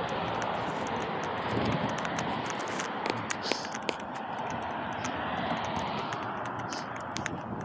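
Road traffic passing, a rushing noise that swells and fades twice, with scattered light clicks.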